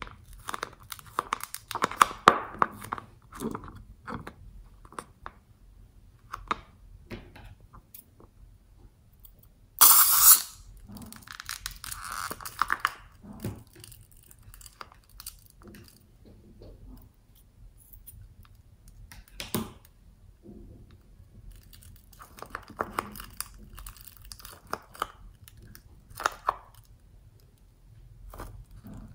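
Hands handling and squeezing a slime-filled latex balloon: rubbery rubbing, crackles and wet squelching as clear slime is pushed out of the balloon's neck into a glass dish. A loud, short noisy burst comes about ten seconds in.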